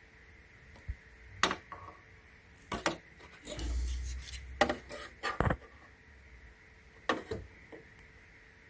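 Hand handling noises at a workbench: a series of sharp clicks and knocks, with a short rubbing scrape about halfway through and a duller thump soon after.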